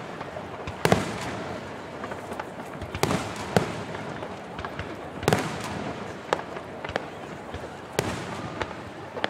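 Aerial fireworks shells bursting: about eight sharp booms at irregular intervals of one to two seconds, with smaller crackles in between.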